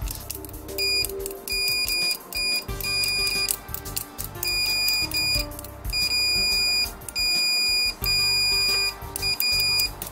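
LIUMI LM2001 multimeter's continuity buzzer beeping as the probe tips touch and part: about a dozen high-pitched beeps of uneven length, some short and some near a second long.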